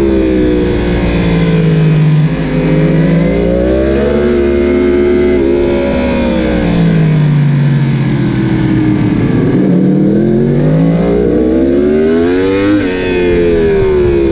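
Onboard sound of a Yamaha YZF-R1's crossplane inline-four at racing pace: the engine note falls as the bike slows for a corner, climbs again under throttle, sinks lower into a slower corner, then rises hard with a quick drop near the end at a gear change. Wind noise runs underneath.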